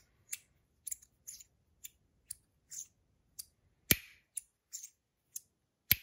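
Metal pieces of a Clown Orange Biscuit magnetic slider fidget snapping together and sliding apart, giving a string of short sharp clicks about two a second. Two louder snaps come near the middle and at the end.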